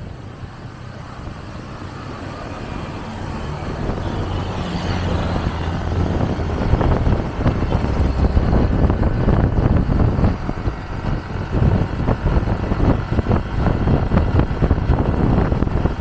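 Road traffic: a vehicle engine's low hum and road noise grow steadily louder over about six seconds, then stay loud with irregular buffeting.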